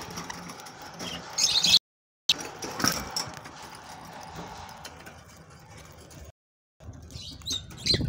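Budgerigars chirping in short high bursts among a low chatter, with small clicks of beaks husking seed. The sound cuts out twice briefly.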